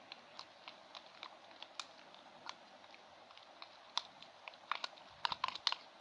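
Glue-and-detergent slime being stirred and worked with a spoon, giving irregular sticky clicks and small pops, with a quick cluster of them about five seconds in.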